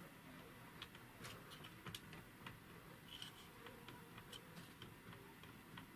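Faint, irregular light clicks, roughly one or two a second, from a Diamondback DB15 AR-15's upper receiver knocking against the lower as the rifle is rocked by hand. The clicking is the sign of play (looseness) between the upper and lower receivers.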